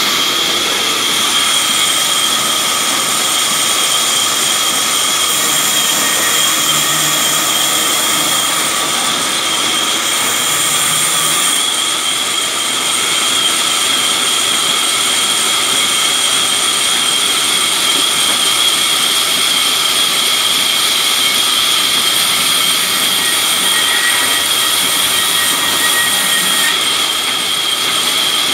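Sawmill band saw running, a loud, steady high-pitched whine with no letup.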